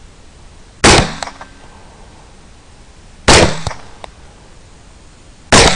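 Three AR-15 rifle shots, about two and a half seconds apart, each a sharp crack with a brief echo trailing off; the last falls near the end.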